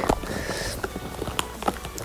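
A hoe chopping into dry, grassy soil in a few sharp strikes, each under a second apart, as the field is dug by hand. Soft background music runs underneath.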